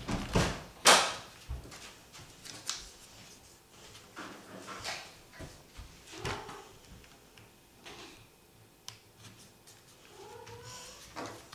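Folded paper triangles of a 3D origami model rustling and crinkling as fingers press them into place, in scattered short rustles, the loudest about a second in.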